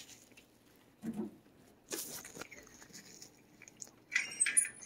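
Cat chewing and biting a treat, a few separate crunchy bites. Near the end, a louder burst of clattering with a faint metallic ring.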